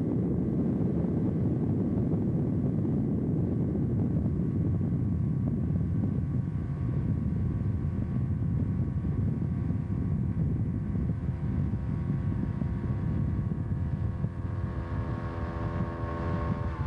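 Tow boat's engine running steadily at towing speed, with a dense low rush underneath; its engine tone comes through more clearly near the end.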